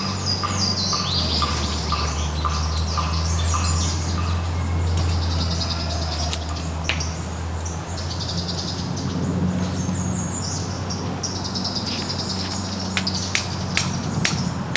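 Birds chirping and singing in quick repeated trills, over a steady low hum, with a run of sharp clicks near the end.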